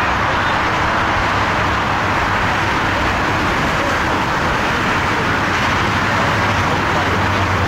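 Boeing 747-8F's four GEnx-2B turbofan engines on final approach: a steady rushing jet noise with a low hum beneath it.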